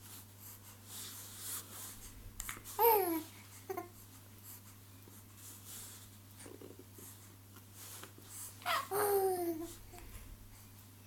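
Young infant, about ten weeks old, cooing: short high-pitched vocal sounds that slide down in pitch, one about three seconds in and a longer one about nine seconds in, with small mouth clicks and breaths between.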